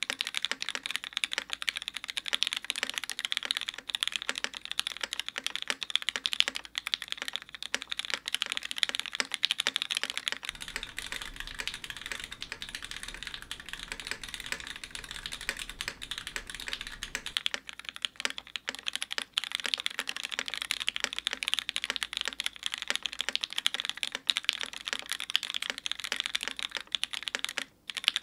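Steady, rapid typing on a Matrix 2.0 Add mechanical keyboard in an aluminium case, fitted with lubed Cherry MX Black linear switches, TX springs and GMK keycaps and no dampening. The keystrokes come thick and fast and pause briefly near the end.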